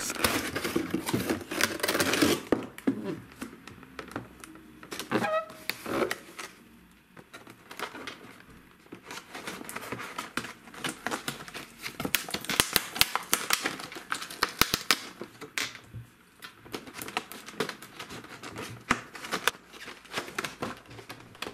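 Clear plastic blister packaging being handled and flexed, crinkling and crackling in irregular clicks, with a couple of brief lulls.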